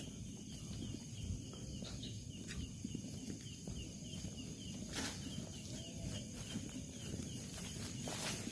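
Small night creatures chirping steadily, about three to four short chirps a second, over low scuffing and rustling from walking.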